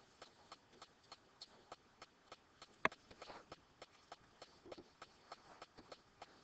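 Faint, sharp clicking, a few ticks a second, with one louder click about three seconds in: a pen tapping on an interactive whiteboard while writing.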